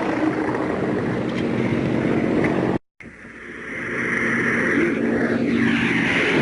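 Boeing B-17's four radial piston engines droning as it comes in low and passes overhead. The sound cuts out completely for a moment about three seconds in, then swells back louder as the bomber passes.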